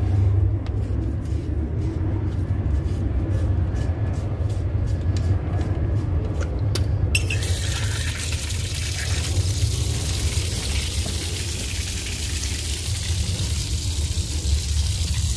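Water gushing out of an open brass hose bib on a copper supply line, starting suddenly about halfway through and running steadily, over a low rumble that runs throughout.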